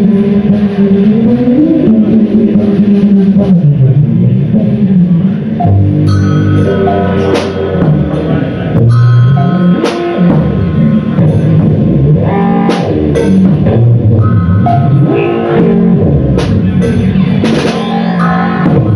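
Live band playing loud music with drums and guitar. A held low note slides up and back down at first; from about six seconds in, sharp drum hits and brighter notes come in over it.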